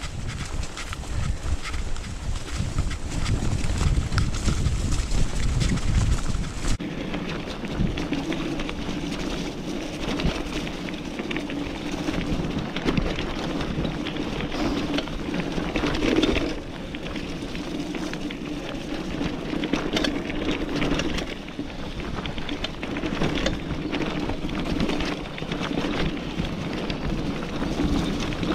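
A B'Twin 520 mountain bike on 27.5-inch wheels rolling over a wet grassy trail: steady tyre and drivetrain noise, with short rattles over bumps. Wind buffets the microphone, heaviest for the first several seconds.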